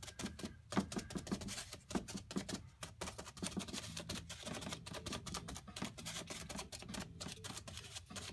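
Crumpled ball of aluminium foil dabbed and twisted against a painted canvas: an irregular run of crinkling taps and clicks, several a second.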